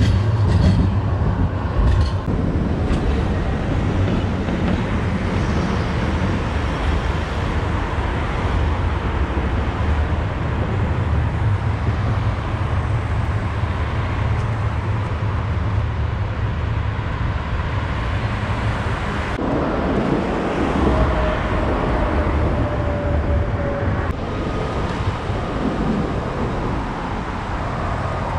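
Trams and cars passing on a city street: steady tyre and engine noise with a deep rumble. About two-thirds of the way through a short falling whine, and near the end a steady higher whine.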